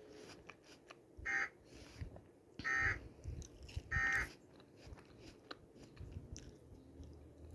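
Emergency Alert System end-of-message data bursts: three short, identical digital bursts starting about a second in, spaced about a second and a half apart, marking the end of the tornado watch broadcast.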